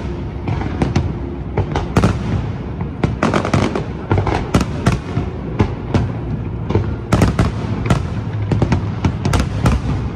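A large fireworks display: aerial shells bursting in quick, uneven succession, many sharp bangs over a steady low rumble.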